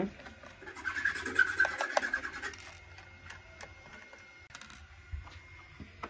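Small hand screwdriver turning screws out of an HP Pavilion x360 laptop's back panel: a scraping, grating rasp for about two and a half seconds, then a few faint clicks and taps.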